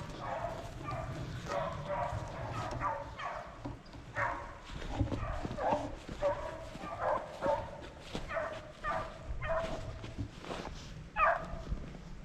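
Two rabbit hounds baying on a rabbit's trail, a string of short, high cries every half second or so, thickest in the second half. The baying is the sign that the dogs are running the rabbit.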